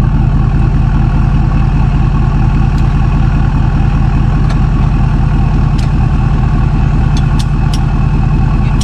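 Tow truck engine idling steadily close by, with a few light clicks over it, most of them near the end.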